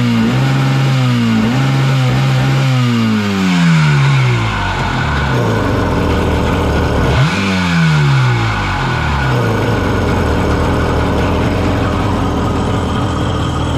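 Kawasaki Twin Carb 750 two-stroke jet ski engine running out of the water on a garden hose. Its pitch drops back about three seconds in, revs up sharply about seven seconds in and falls again, then it settles into a steady idle. This follows a half-turn of its idle screw meant to keep it idling.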